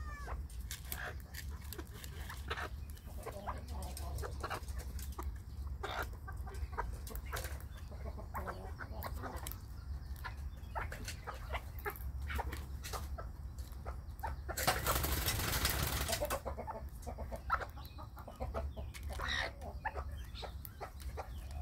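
Broody Old English Game bantam hens pecking feed pellets from a plastic bowl: many quick irregular clicks of beaks striking pellets and plastic, with clucking and a short call now and then. About two-thirds of the way through, a brief rushing noise lasting a second or so stands out above the pecking.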